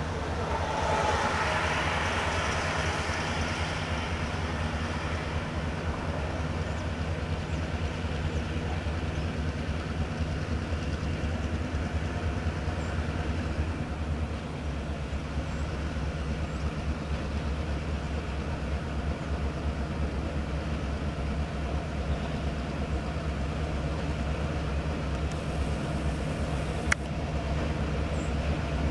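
Two Norfolk Southern diesel-electric freight locomotives running steadily as they roll slowly forward with a loaded freight train, their engines droning low. A louder rush of higher-pitched noise comes in the first few seconds, and there is a single sharp click near the end.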